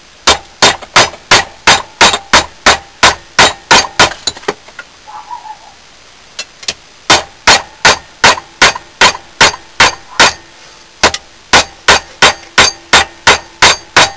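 Hammer blows on a bent steel lawn mower blade held in a vise, about three strikes a second in three runs with short pauses between them, the metal ringing faintly: the blade is being beaten straight.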